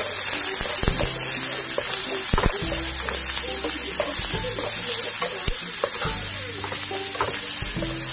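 Chopped onion, ginger and green chillies sizzling in hot mustard oil in a nonstick frying pan, stirred with a wooden spatula that scrapes and knocks against the pan several times.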